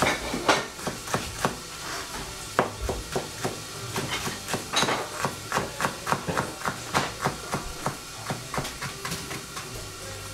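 Kitchen knife chopping on a cutting board: a steady run of sharp knocks, about three or four a second.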